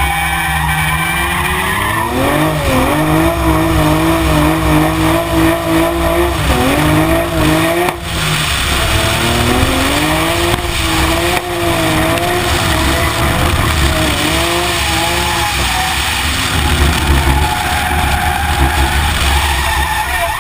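Toyota Supra's 2JZ straight-six engine revving up and down as the car drifts, with tyres squealing and skidding. A heavy low rumble of wind on the side-mounted camera sits under it, and the revs drop briefly about eight seconds in before climbing again.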